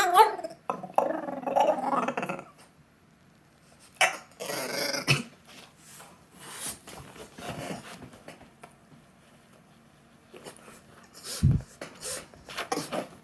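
French bulldog puppy howling and whining in a string of strange, rough vocal bursts, begging for McDonald's food. A short low thump about eleven and a half seconds in.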